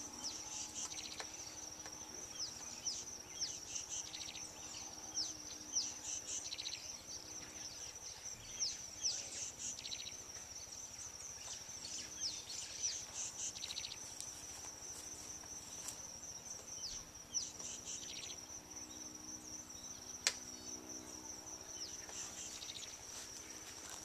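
Steady high insect trill with repeated short, falling bird chirps over it, and a sharp tap about twenty seconds in.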